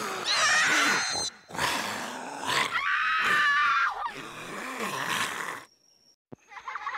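Loud roaring, growling and screaming, a monster-style sound effect, in long noisy stretches that stop about five and a half seconds in. Then comes a sharp click, followed by a steady hiss with a thin high whine.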